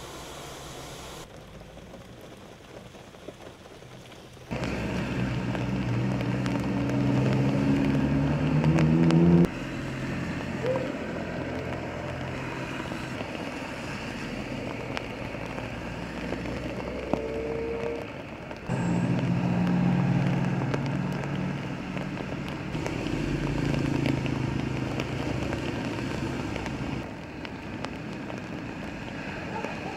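Road traffic in the rain: vehicle engines passing, one rising in pitch as it accelerates, over the steady sound of falling rain. The sound changes abruptly several times.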